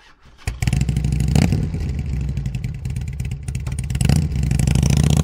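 Motorcycle engine running, with a quick rev about a second and a half in and again about four seconds in.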